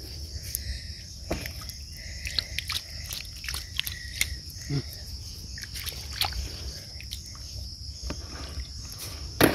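Hands scooping and scraping in shallow water and wet sand: a scatter of small splashes and squelches, over a steady high insect drone.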